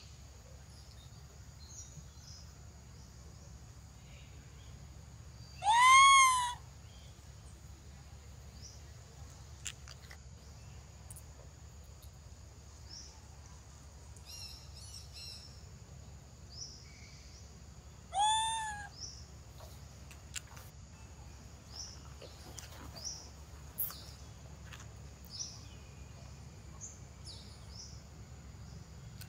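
A mother monkey crying twice, about twelve seconds apart: each cry is a loud drawn-out call under a second long that rises and then falls in pitch. The cries are the sad sound of a mother missing her baby.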